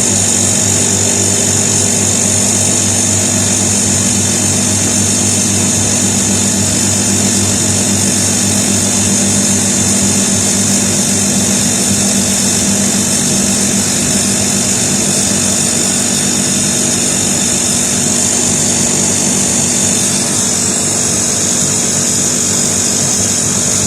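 Air-conditioner outdoor unit running with a steady low hum and a high, even hiss. Its condenser fan motor has a stuck bearing in need of repair.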